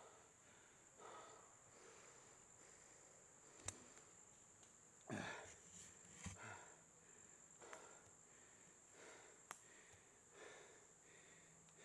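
Faint, laboured breathing of a mountain biker pedalling uphill while out of breath, a puff every second or so. A steady thin high whine runs behind it, and two sharp clicks come about a third of the way in and near the end.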